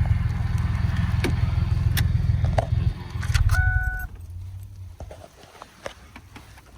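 Ford F-150 pickup's engine running with a low rumble that drops away about four seconds in. A short steady electronic beep sounds just before the drop, and a few light clicks follow.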